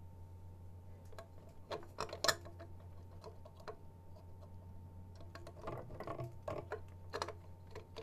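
Small clicks and rustles of a cable and plastic parts being handled, in two clusters: about two seconds in, and again around six to seven seconds in. Under them is a steady low hum.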